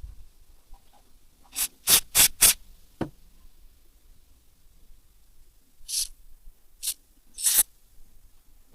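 Short hissing spray bursts: four quick ones about two seconds in, then three more spaced out near the end, the last one the longest.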